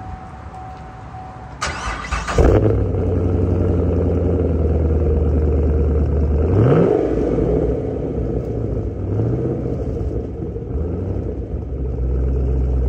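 A 2015 Chevrolet Camaro Z/28's 7-litre LS7 V8 being started: the starter cranks for under a second and the engine catches loudly about two and a half seconds in, then idles. About halfway through there is one short rev that rises and falls back to idle.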